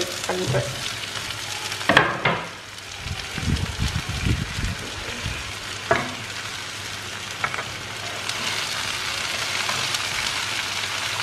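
Sliced onions sizzling in coconut oil in a kadai as chunks of raw jackfruit are dropped in, with a few sharp knocks as pieces land in the pan, the loudest about two seconds in.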